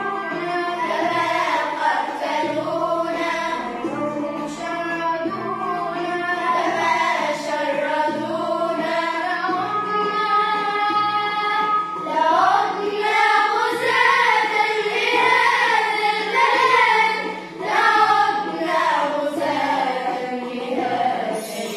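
Children's choir of young girls singing a song together over an instrumental accompaniment, with a long held note about halfway through.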